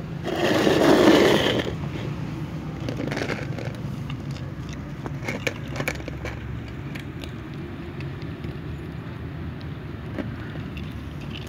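Cats crunching dry kibble close up, heard as scattered small crackling clicks over a steady low rumble. A loud rushing noise swells and fades over the first two seconds.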